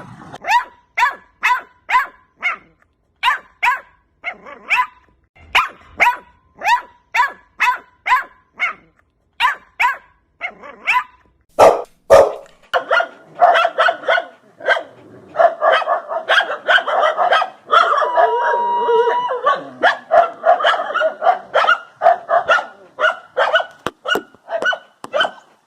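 Dog barking in short, regular barks about two a second, then, after a sharp knock about halfway through, faster, overlapping barking that runs almost without a break. A brief held whine-like tone comes about two-thirds of the way in.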